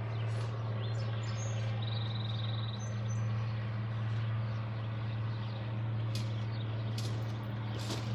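Birds chirping, with one short buzzy trill about two seconds in, over a steady low hum. A few sharp clicks or taps come near the end.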